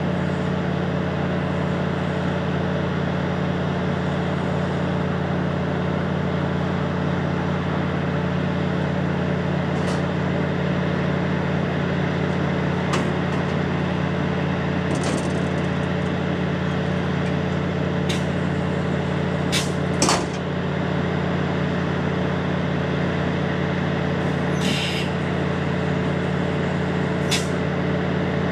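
Diesel multiple-unit train running steadily at idle, a constant low engine drone. A few short clicks and brief hisses sound over it, the sharpest about two-thirds of the way through.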